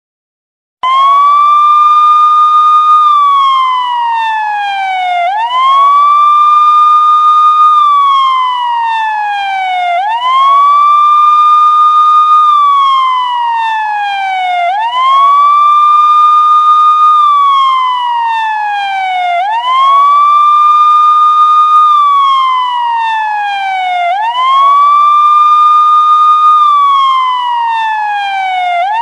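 Police siren wailing after about a second of silence: each cycle sweeps up quickly to a high tone, holds it for about two seconds, then slides steadily down, repeating about every four and a half seconds.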